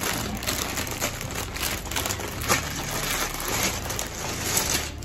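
Clear plastic bag full of Lego pieces crinkling and rustling as it is handled and opened, with many small clicks.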